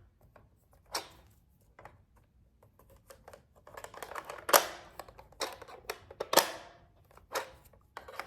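Plastic toy cash register being handled and its keys and parts pressed: a series of sharp plastic clicks roughly a second apart, with a brief clatter of handling just before the loudest click around the middle.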